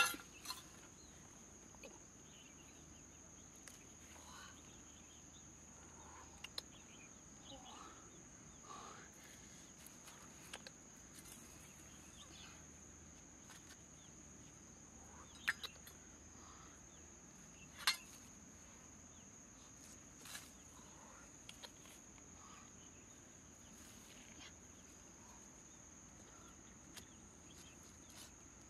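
Insects in the undergrowth keep up a steady, faint, high-pitched drone, with scattered sharp clicks and taps of a knife cutting mushrooms off a rotting log.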